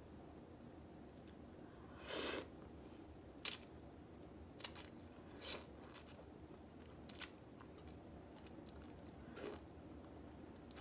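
Ramen noodles being slurped and chewed close to the microphone: one louder slurp about two seconds in, then several short, quieter mouth clicks and smaller slurps spaced out over the rest of the time.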